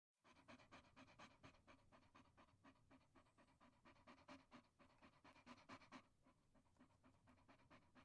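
A dog panting quickly and evenly, about four breaths a second, growing fainter about six seconds in.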